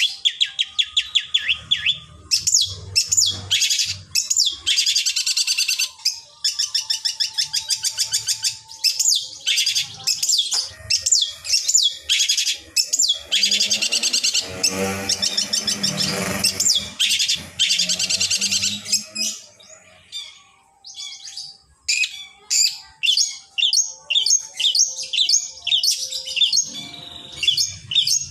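Long-tailed shrike singing a rapid, varied song of fast trills and chattering notes, with a harsh, rasping stretch near the middle and a brief pause a little after it.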